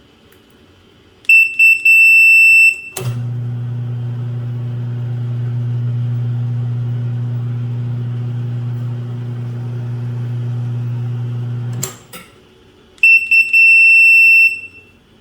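Electronic beeping: a few short high beeps followed by a long high beep, heard twice. Between the two sets there is a steady low hum lasting about nine seconds.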